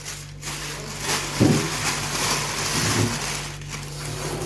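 Plastic bags crinkling and rustling as they are handled and opened, with a soft thump about a second and a half in.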